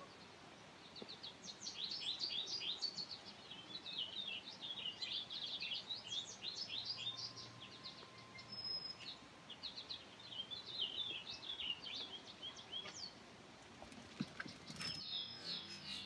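Songbirds chirping and singing in quick runs of high notes, several birds at once, with a break of a few notes now and then.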